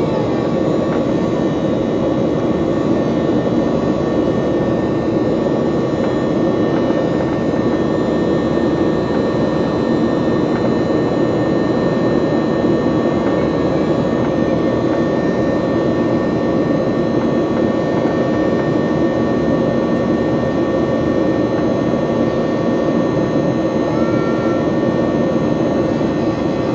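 Steady jet-engine cabin noise inside a Boeing 737-800, its CFM56-7B turbofans running evenly: a loud, constant rush with a few steady whining tones above it.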